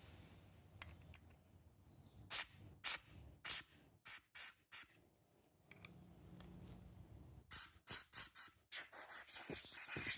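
Short bursts of pressurised spray hissing, about six spaced bursts and then a quicker run that blurs into near-continuous hiss near the end.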